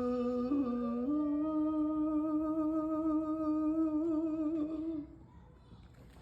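A man humming long held notes, a low note that steps up about a second in and then wavers with vibrato, stopping about five seconds in.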